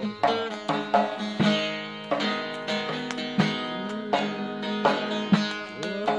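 Kurdish folk music played on a plucked string instrument: a run of sharply plucked notes over a steady low drone.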